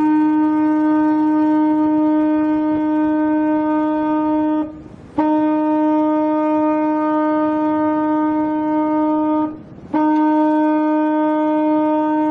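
Ship's horn sounding long, steady, single-pitched blasts, three in a row, broken by short half-second gaps about four and a half and nine and a half seconds in.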